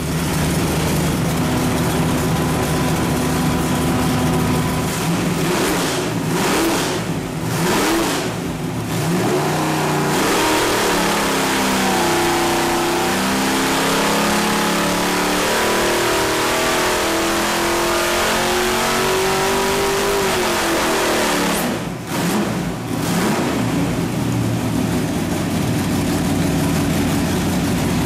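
A 434-cubic-inch small-block Chevrolet V8 with a Holley carburetor and hydraulic roller cam running on an engine dyno. It runs steadily, then a dyno pull drives the revs steadily upward for about ten seconds. Near the end of the pull the throttle closes, the revs drop off sharply, and the engine settles back to steady running.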